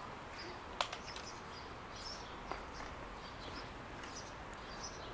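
Outdoor background noise with small birds chirping here and there, and a single sharp click a little under a second in.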